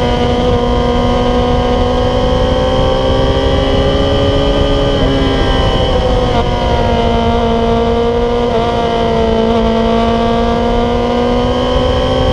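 Yamaha YZF-R6 inline-four sport bike with an MGP Growler exhaust, running hard at high revs through a long corner. Its pitch stays nearly steady with slight rises and falls and a small dip about five to six seconds in, over steady wind rush.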